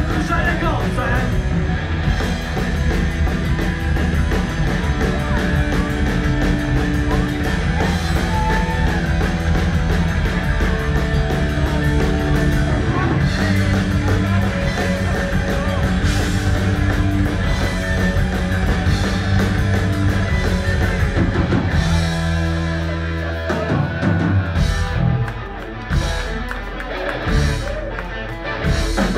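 A rock band playing live on electric guitar, bass and drum kit, with no words sung in this passage. About 22 seconds in, the full sound thins out to a held low note followed by separate, spaced hits.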